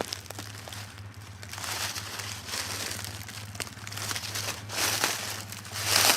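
Footsteps crunching and swishing through dry weeds and brush, in uneven bursts that grow louder near the end.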